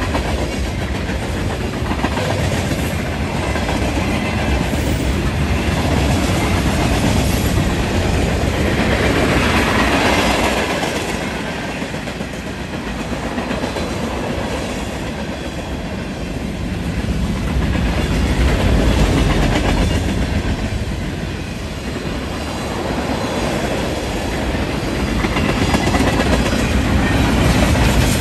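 Freight train cars rolling past, steel wheels clicking over the rail joints under a continuous rumble that swells and fades.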